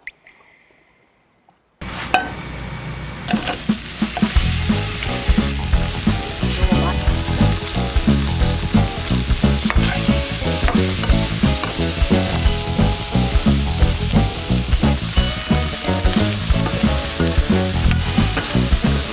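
Whole king prawns (daeha) frying in butter in a hot pan, sizzling steadily while a metal spatula stirs them with repeated scrapes and clicks. The sizzle starts suddenly about two seconds in, after near silence.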